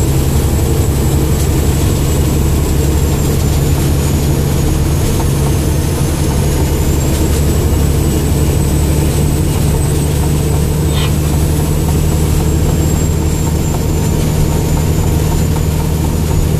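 Truck engine running steadily, heard from inside the cab while driving, with rain and road noise over it.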